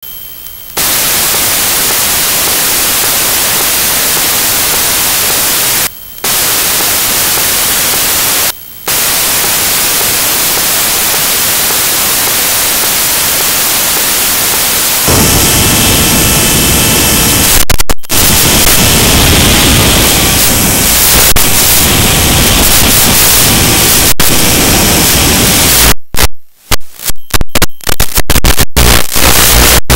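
Loud steady static hiss from an analog FPV video link's audio channel, cutting out briefly twice. About halfway through it turns rougher and louder, with faint steady tones in it. Near the end it breaks up into rapid stuttering cut-outs.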